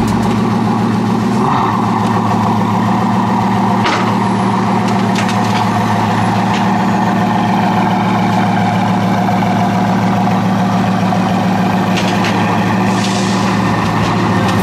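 Bugatti Veyron 16.4 Super Sport's quad-turbo W16 engine idling steadily, with a short hiss near the end.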